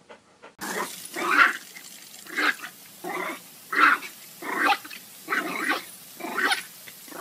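A dog barking and growling in a string of short outbursts, about one a second, starting about half a second in.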